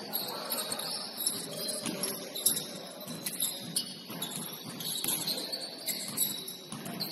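Basketball shoes squeaking on a gym floor during play: short high squeaks that come and go throughout, with scattered sharp knocks of a basketball bouncing.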